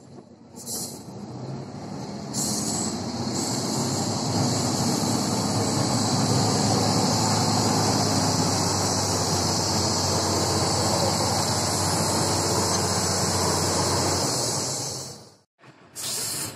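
Heavy six-wheel-drive trial truck's diesel engine working hard under load as the truck climbs out of a mud pit: a steady drone with a hiss over it. The sound cuts out about fifteen seconds in, then a brief loud burst near the end.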